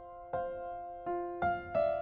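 Soft, slow piano music: four notes struck in turn, about half a second apart, each left ringing over the others.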